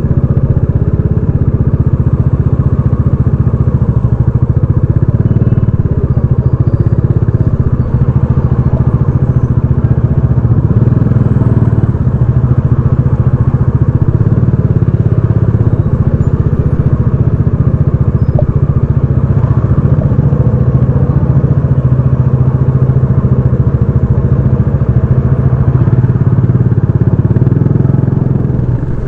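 Dominar 400 UG motorcycle's single-cylinder engine through its stock exhaust, heard from the rider's seat while riding at a fairly steady, moderate speed; the engine note holds even with only small rises and falls in revs.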